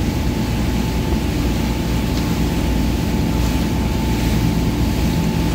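Motorboat engine running steadily at towing speed, a constant hum over the rush of the wake behind the boat.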